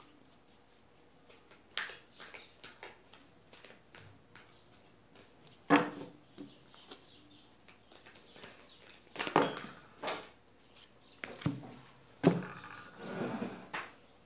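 A deck of tarot cards being shuffled by hand: scattered soft card clicks and slaps, with two sharper knocks, one about six seconds in and one about twelve seconds in, followed by a brief rustle.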